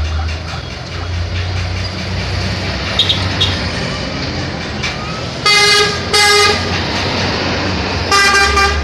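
A passing bus sounds its horn three times: two short blasts close together, then a third about two seconds later, each held on one steady pitch. The low rumble of engines and traffic runs underneath.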